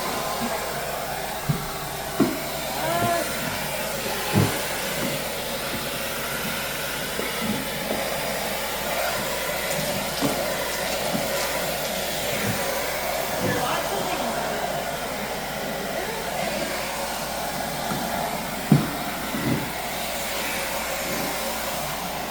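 Central vacuum cleaner running steadily through its hose and floor tool, a constant airy rush, with a few sharp knocks from the tool bumping about, clustered near the start and again near the end.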